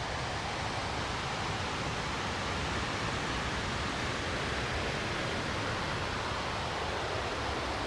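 Steady rushing of the Tygart Valley River's water pouring over the rock ledges of Valley Falls.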